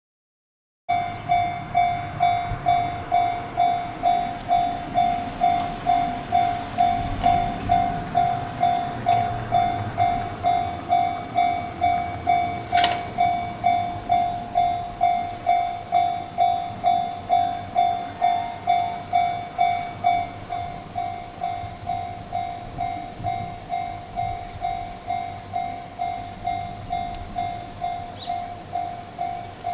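Japanese level-crossing warning bell ringing in a steady electronic ding-ding, about two strikes a second, and a little quieter from about two-thirds of the way through. A low rumble swells and fades under it in the first half, with one sharp click.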